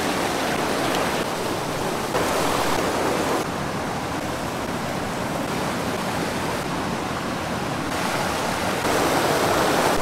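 Forest stream rushing over rocks in small cascades: a steady, loud rush of water whose loudness shifts abruptly a few times.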